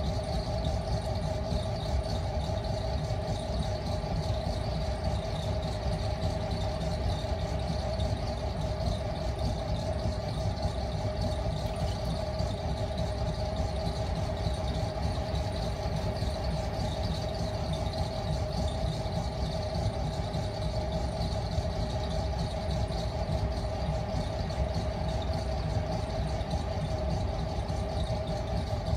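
Motor-driven potter's wheel running steadily, a constant mid-pitched whine over a low rumble.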